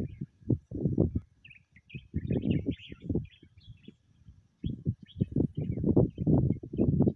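Small birds chirping faintly in the background, under loud, irregular low rumbling bursts that come and go, with a short lull just past the middle.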